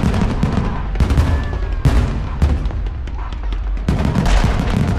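Aerial fireworks bursting in a rapid, irregular string of sharp bangs with a low rumble, densest in a cluster near the end.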